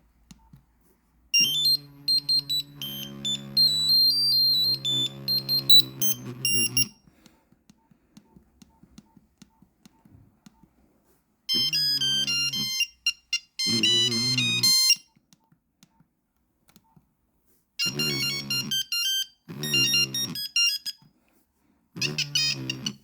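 Nokia 3310 mobile phone playing monophonic ringtone melodies through its small speaker, a run of beeping single-note tunes that stop and start again several times, with faint clicking in the gaps.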